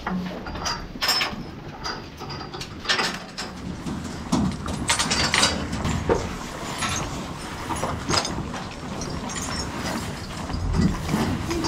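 Irregular metallic clanks, rattles and knocks of dairy-barn fittings as cows are handled.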